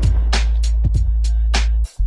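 Background music with a heavy bass and a steady beat of sharp percussion strikes, cutting out briefly near the end.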